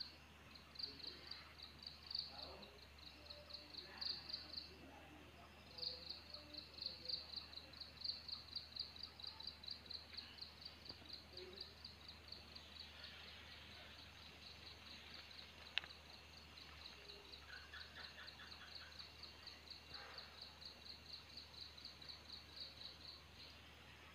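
Faint, high-pitched insect chirping in quick, regular pulses, pausing briefly about five seconds in. A single sharp click sounds about two-thirds of the way through.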